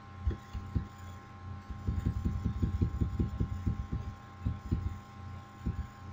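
Computer mouse scroll wheel being turned in quick, irregular runs, giving many soft low thuds over a steady low hum and a faint high whine.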